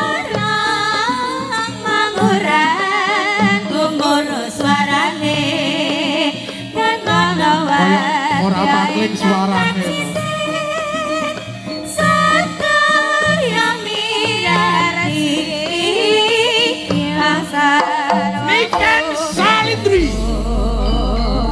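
Live Javanese jaranan music: a gamelan ensemble with kendang drums plays under a wavering, ornamented sung melody. A deep low note comes in near the end.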